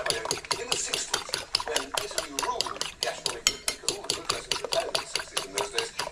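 A fork beating eggs in a ceramic bowl, its tines clicking against the bowl in a quick, steady rhythm of about six strokes a second.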